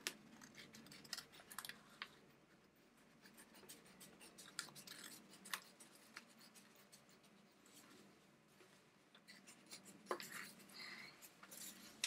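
Small scissors snipping through paper, in faint, irregular snips.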